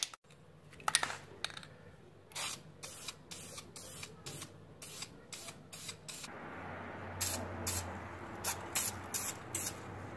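Aerosol spray can of Krylon Rust Tough paint sprayed in many short hissing bursts, about two or three a second, with a brief pause partway through. From about six seconds in, a low steady hum runs underneath.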